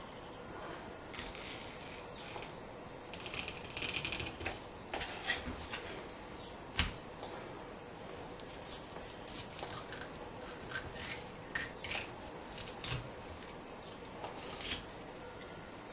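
Knife cutting a herring on a wooden cutting board: soft scrapes and scattered sharp clicks of the blade meeting the board, with a longer scraping stretch about three to four seconds in and one louder knock about seven seconds in.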